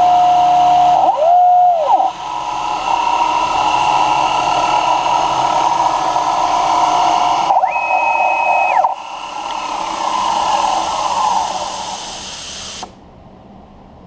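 Grizzly G0704 CNC-converted milling machine running: stepper motor whine rises in pitch, holds and falls twice as the axes make quick moves, over a steady motor noise. The sound drops away sharply near the end, as the machine stops.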